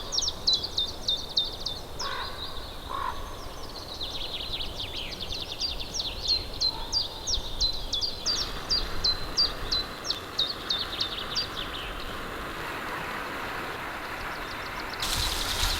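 Songbirds singing in a pine forest: a long run of quick, high, repeated chirps, several a second. A steady hiss comes in about halfway, and a louder rush starts near the end.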